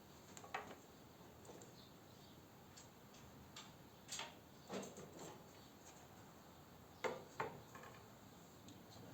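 Scattered faint clicks and light knocks of parts being handled and fitted on a custom PC case, with the loudest pair of knocks about seven seconds in.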